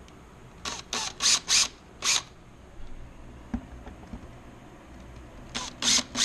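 Power drill run in short pulses: five quick bursts about a second in and another string near the end, drilling starter holes.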